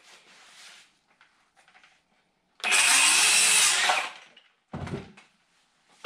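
A handheld power tool runs in one short burst of about a second and a half, starting a little over two and a half seconds in. A brief low knock follows about a second later.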